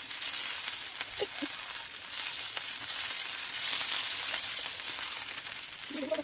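Small batter-coated fish shallow-frying in hot oil, a steady high sizzle with faint crackles; the sizzle gets louder about two seconds in as more fish go into the pan.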